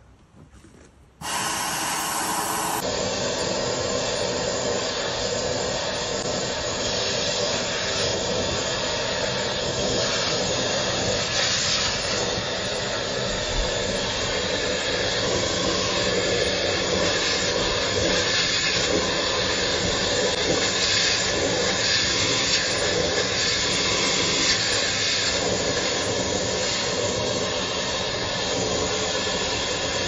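Dryer vent cleaning machine running steadily: a motor with a strong rush of air as its rotary brush cable works in the duct, blowing lint out of the vent. It starts suddenly about a second in.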